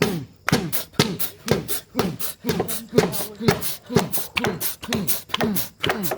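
A voice making rhythmic, beatbox-like vocal sounds: a steady beat of sharp clicks with short falling vocal notes in between.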